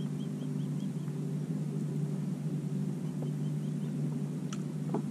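Steady low drone of a distant engine, holding several even tones. A faint run of short high chirps sounds in the first second and again about three seconds in, and a couple of light clicks come near the end.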